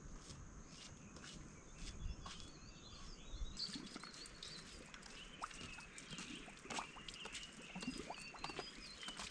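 Faint outdoor ambience of small birds chirping, with scattered light taps and rustles. A thin steady high tone stops about a third of the way in, and the chirping becomes busier after that.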